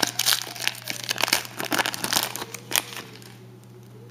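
Foil wrapper of a trading-card pack crinkling and tearing as it is ripped open by hand: a rapid run of sharp crackles for about three seconds that then stops.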